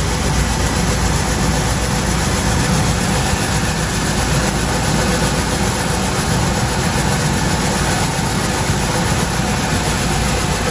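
Coin-operated rice polishing machine running steadily, milling brown rice into white rice, with a low motor hum under the hiss of grain moving through it.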